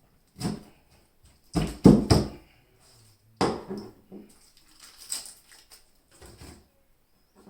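Close-miked sounds of pineapple being eaten with a spoon: irregular wet bites and chewing, loudest in a cluster about two seconds in, with softer bites after.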